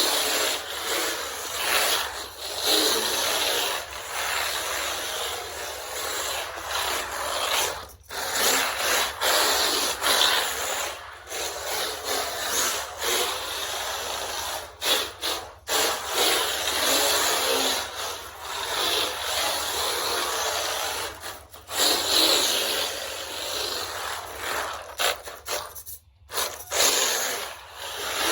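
Small electric RC car (WLtoys K989) driving in bursts: motor and tires scrubbing across the surface. The sound cuts out briefly several times as the throttle is let off.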